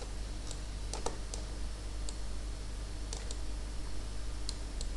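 Scattered sharp clicks of computer input, about nine irregularly spaced, over a steady low hum.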